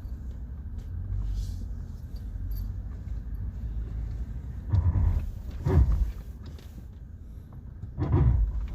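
Haval H9's brakes giving three loud, growling grinding bursts, about five, six and eight seconds in, over the car's steady low running rumble: a gear-clash-like brake noise that came on suddenly, with its cause not yet found.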